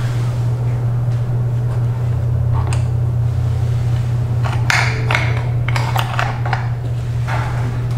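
Plastic and metal parts of a Maytag washer transmission clicking and knocking as they are handled and fitted together, most busily in the second half, over a steady low hum.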